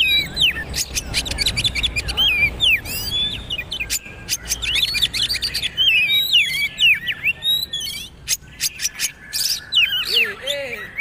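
Oriental magpie-robin (kacer) singing in a fast, varied stream of whistles and chattering notes that sweep up and down, with short gaps between phrases.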